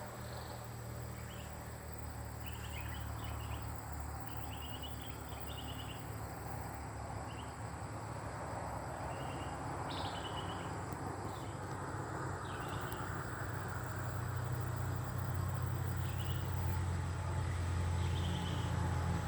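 Bulbul giving short chirps and calls at irregular intervals, over a steady low rumble that grows louder near the end.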